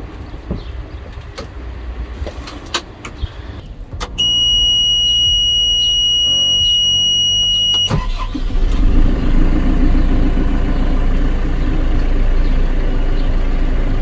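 Clicks of cab controls, then a steady high electronic warning tone from the dash for about four seconds, cut off as the JCB 3CX backhoe loader's 4.8-litre four-cylinder diesel fires at about eight seconds. The engine then runs at a steady idle.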